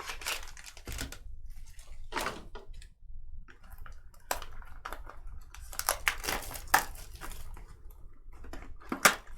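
Trading cards and their packaging being handled: a run of short rustles, crinkles and taps, the sharpest one near the end.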